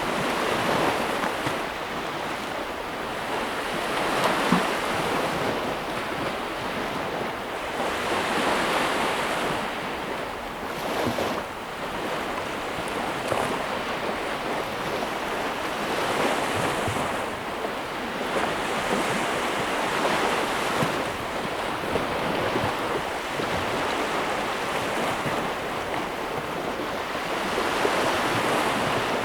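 Ocean waves breaking and washing on a shore, the surf swelling and fading every few seconds.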